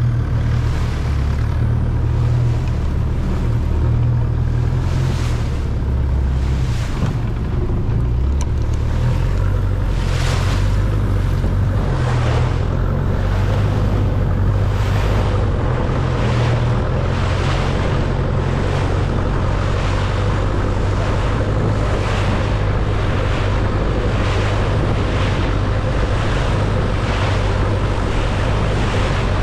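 Engine of a wooden longtail boat running steadily at cruising speed, a low continuous rumble, with water rushing past the hull and the wake, and wind on the microphone.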